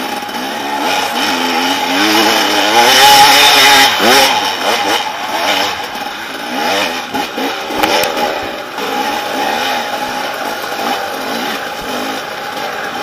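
Dirt bike engine revving up and down under load on a steep rocky climb, heard close up from the bike itself; the revs peak about three to four seconds in.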